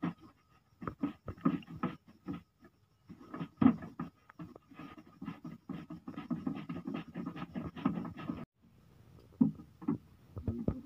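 Long plastic spout being pushed and twisted into the socket of a plastic watering can: repeated scraping and clicking of plastic on plastic, with a quick run of scrapes that stops about eight seconds in, then a couple of knocks.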